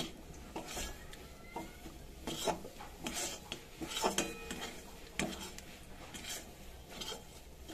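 Flat metal spatula scraping and stirring a thick, dry nut paste around a metal kadai, in separate irregular strokes of metal rasping on metal: the paste has been cooked down until completely dry.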